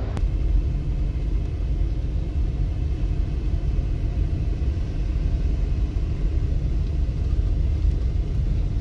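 Steady low rumble of a Chevy Express van's engine and tyres, heard from inside the cabin as it drives along a dirt road.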